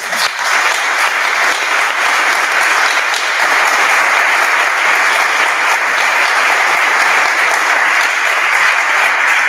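Audience applause: many people clapping, breaking out all at once and holding steady.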